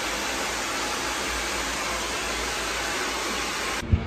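Hand-held hair dryer blowing steadily, an even rush of air. It cuts off abruptly near the end, followed by a short knock.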